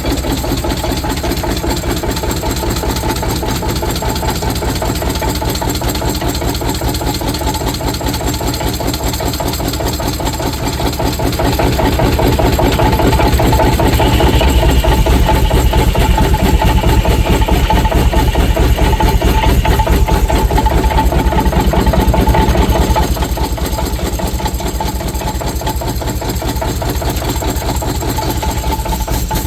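Steam engine running a sawmill, its exhaust beating rapidly and evenly. For about ten seconds in the middle it grows louder, with a higher-pitched whine added, as the saw takes a cut under load.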